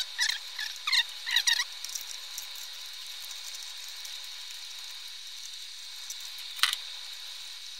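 A rapid run of short, high squeaks of flat plastic ribbon cable rubbing as it is worked through a hole in a small 3D printer's plastic case, stopping about a second and a half in. Then only a faint steady hiss, with one sharp click near the end.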